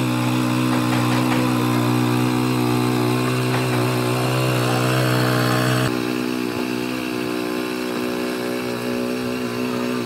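Small engine of a walk-behind rotary tiller running steadily while its tines churn through a sandy soil mix. The engine note shifts abruptly about six seconds in.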